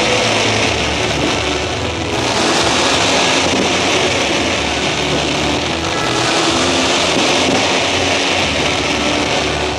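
Fireworks hissing and crackling in a dense, steady wash from fountain effects and crackling shells, swelling twice.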